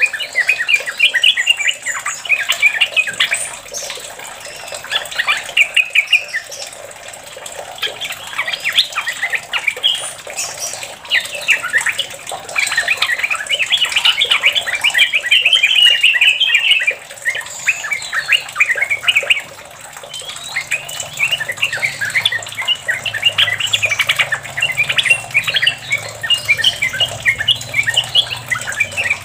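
Yellow-vented bulbul singing long runs of rapid chattering, bubbly notes (the 'ropel' style), with a couple of short lulls. A faint low hum comes in about two-thirds of the way through.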